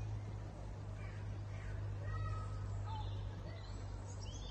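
A flock of flamingos calling, with short calls scattered through, over a steady low hum.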